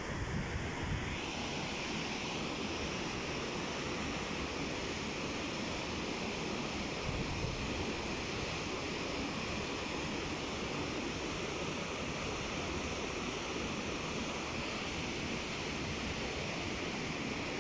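Muddy floodwater torrent rushing over boulders down a rocky mountain stream bed: a steady, unbroken rush of water from a stream in flood.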